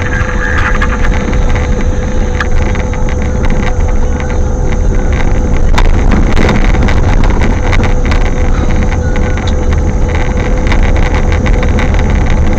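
Strong gusting wind buffeting the microphone: a loud, continuous low rumble. A steady hum tone sits underneath.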